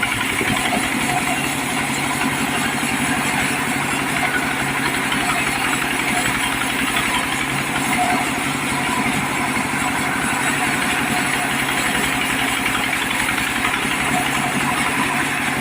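Diesel engine of a mobile sawmill running steadily at an even speed.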